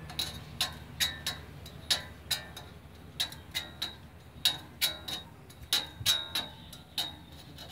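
Hand file working the teeth of a band saw blade: short, sharp metallic strokes, about two or three a second, each with a brief ring from the steel blade. The strokes stop shortly before the end.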